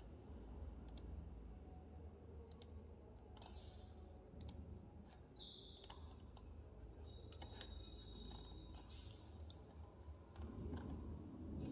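Computer mouse clicking now and then, scattered single clicks, over a faint steady low hum.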